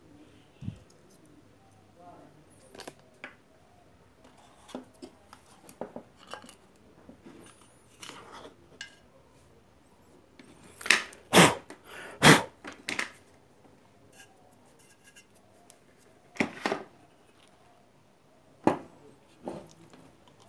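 Irregular clicks and metallic clinks of small parts and hand tools as an electric iron is being taken apart by hand, with a louder run of knocks about halfway through.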